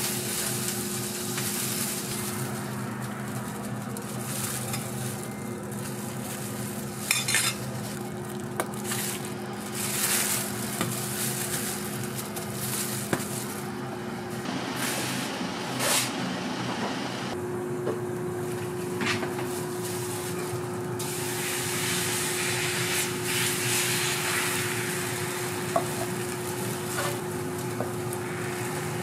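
Beaten egg and bread frying on a flat-top griddle, sizzling steadily, with a metal spatula now and then clicking and scraping on the plate. A steady low hum runs underneath.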